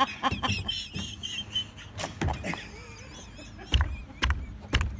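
A plastic kayak hull knocking and bumping against a wooden dock as a man clambers out of it onto the boards. There are a few sharp knocks about two seconds in and three heavier dull thumps near the end.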